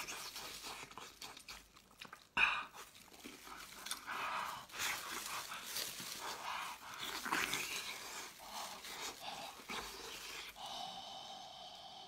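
Close-up noisy eating: a man biting, chewing and sucking at a braised pork knuckle, breathing heavily between mouthfuls in short irregular bursts. A sharp click about two and a half seconds in.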